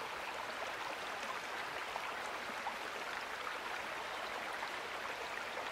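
Steady splashing and trickling of water from a backyard fountain.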